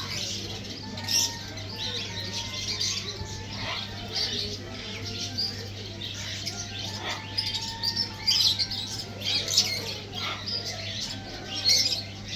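Sun conures chirping and calling in short, high bursts throughout, with a few louder calls near the middle and end, over a steady low hum.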